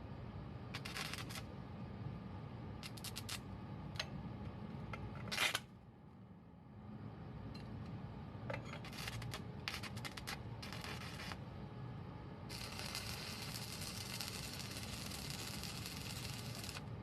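Scattered clicks, light knocks and short bouts of scraping, as of small tools and metal parts being handled, over a steady low hum. A sharp knock comes about five seconds in. A steady hiss-like noise runs for about four seconds near the end.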